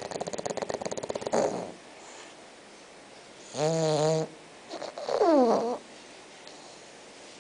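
Six-month-old bulldog snoring in its sleep: a fast fluttering rattle for the first second and a half, then two short pitched snores, the second falling in pitch.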